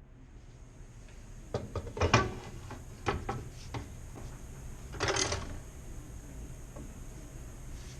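A scattering of knocks and clatters, with a short scraping rasp about five seconds in.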